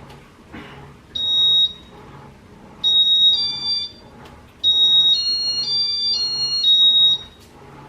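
Electronic beeps from a 1985 Casablanca Zephyr ceiling fan's control as it runs through its demo mode. A short high beep comes about a second in, then a two-tone pair near three seconds, then a longer run of stepped high tones lasting about two and a half seconds.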